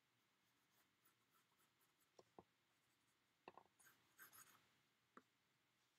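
Near silence, with faint pencil strokes scratching on paper and a few soft ticks.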